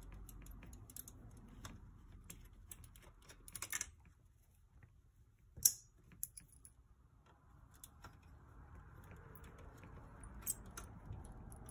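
Light clicks and taps of fingers handling the bare sheet-metal chassis and small parts of a car navigation stereo unit, with a cluster of ticks about three and a half seconds in and a sharper click just before six seconds.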